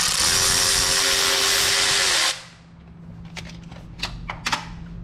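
Cordless electric ratchet running steadily for about two seconds, loosening a bolt on the engine, then stopping abruptly. A few sharp clicks follow as the tool is handled.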